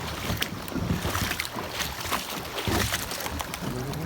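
Water splashing and sloshing with irregular knocks and clatter, from someone moving through a shallow river.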